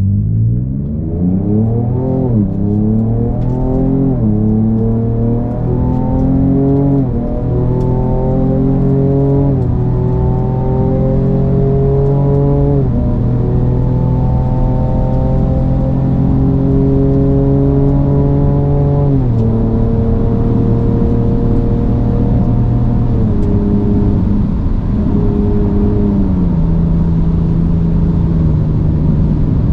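Ford Ranger Raptor's twin-turbo 3.0-litre V6 accelerating hard, its pitch climbing and then dropping sharply at each upshift of the automatic gearbox, five times in the first dozen seconds or so. It then holds a steady pitch for several seconds before stepping down lower a few times.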